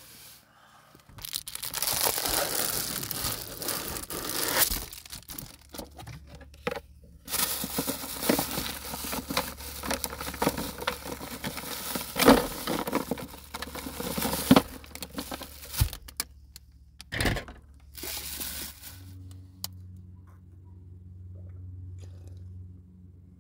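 Plastic bags crinkling and rustling as food is handled in a small cooler, in long stretches with sharp crackles, then going quiet near the end.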